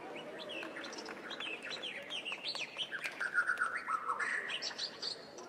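Birdsong sound effect: many quick rising and falling chirps, with a warbling call a little past the middle.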